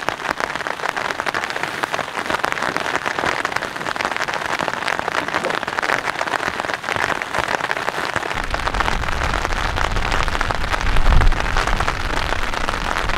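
Rain falling on tent fabric, a dense steady patter of drops. A low rumble of wind gusts comes in about two-thirds of the way through.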